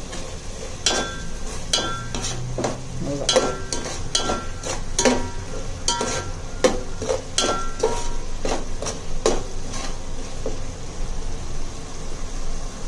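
Spoon stirring frying tomato masala in a pan, knocking and clinking against the pan many times in an uneven rhythm, over a low sizzle of the masala frying in oil. The clinks stop about ten seconds in.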